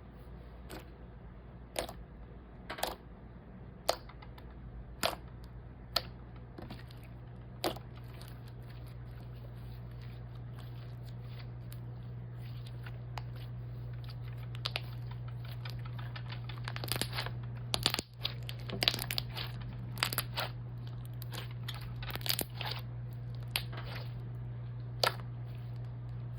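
Slime being handled, giving sharp pops and clicks, about one a second at first and then in a denser flurry later on, over a steady low hum.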